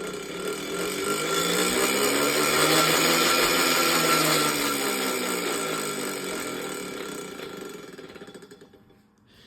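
Minka Aire San Fran ceiling fan grinding loudly from dry bearings. The noise swells and rises in pitch as the fan speeds up, then falls in pitch and fades as it slows down.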